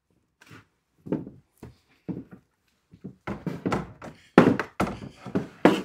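A string of knocks and thunks from large 3D-printed plastic armor pieces being handled and lifted off a wooden workbench, the loudest knocks coming in the last second and a half.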